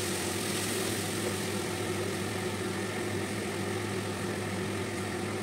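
Kitchen extractor hood fan running with a steady, even hum.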